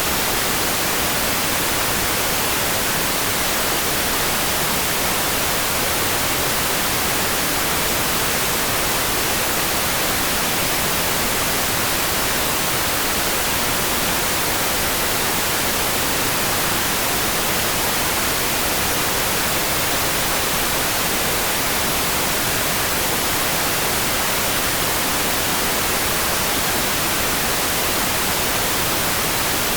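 A steady, even hiss of rain sound for sleep, brightest in the upper range, with no separate drops, thunder or changes.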